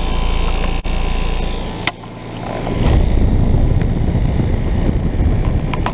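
A 2017 Trane XR14 3-ton heat pump's outdoor unit running in heat mode: a steady hum from its scroll compressor under the rush of the condenser fan. The low rushing gets louder from about three seconds in.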